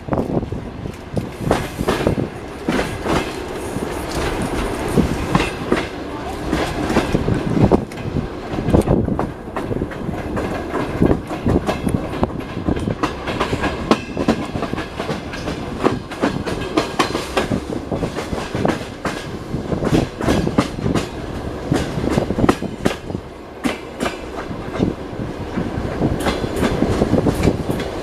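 Passenger train carriage wheels rolling and clacking over rail joints and switches. An irregular run of sharp clacks and knocks sounds over a steady rumble.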